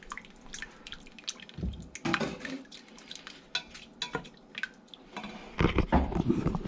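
Kitchen clatter while cooking: a string of light clinks and knocks of pots and utensils with some water, then a few heavier knocks about five and a half seconds in.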